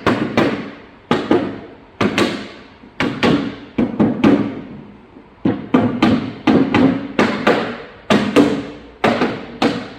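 Rubber mallet knocking a phenolic racking panel down onto its tenons: a steady run of quick blows, often in twos and threes, each with a short ringing decay from the panel.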